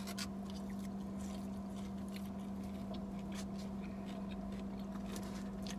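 A steady low hum inside a car cabin, with soft chewing and faint small clicks and scrapes of a plastic fork in a salad container.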